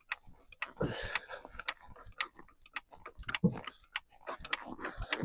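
Snow crunching underfoot in quick, irregular crunches and clicks.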